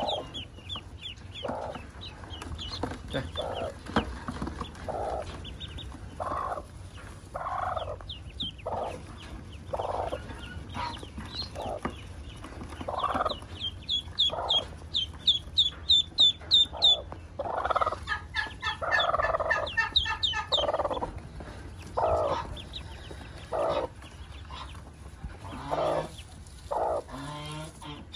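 A broody hen clucking again and again, about one cluck a second, while newly hatched ducklings peep in high, quick chirps, with a fast run of loud peeps around the middle.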